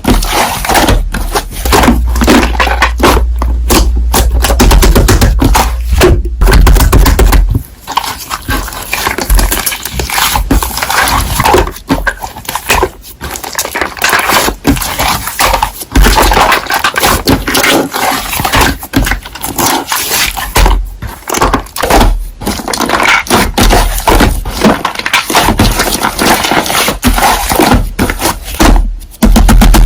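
Slime being squeezed, pressed and stretched by hand: a dense run of wet clicks, pops and crackles, with a low rumble under it for the first several seconds.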